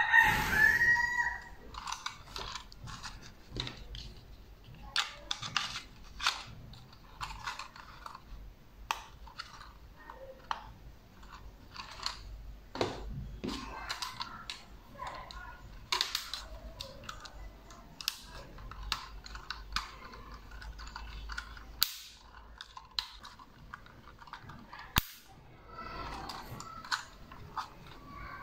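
Irregular plastic clicks and snaps as a small folding camera quadcopter is handled and its arms are swung out. A rooster crows loudly at the start.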